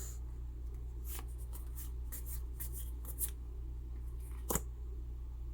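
Pokémon trading cards being flipped through by hand: a string of soft flicks and slides of card on card, over a steady low hum.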